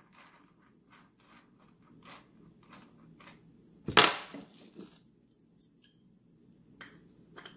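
Light clicks and rustles of hands working the spindle flange of a cordless angle grinder with its wrench. One sharp knock comes about four seconds in, and two small clicks come near the end.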